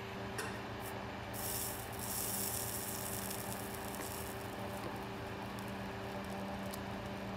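A fan running with a steady low hum. About a second and a half in comes a brief sizzling hiss as the soldering iron tip melts flux and solder on the circuit board's pads.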